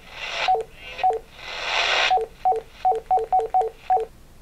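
Baofeng UV-5R handheld radio in FM broadcast radio mode: bursts of static hiss from its speaker, broken by short two-note key beeps, high then low, as its buttons are pressed. There are nine beeps, the last six coming quickly one after another near the end.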